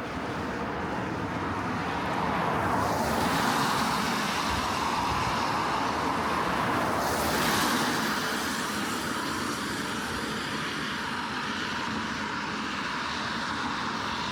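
A car driving past on a wet street: tyre hiss swells over the first few seconds, is loudest about halfway through, then eases off, over a steady wash of rain.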